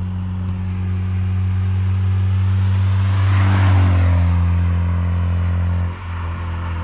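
Acura TSX with a Yonaka catback exhaust and PLM header driving past at steady speed: a steady low exhaust drone with tyre and wind noise that swells to its loudest as the car goes by, a little over halfway through. The sound drops off suddenly near the end.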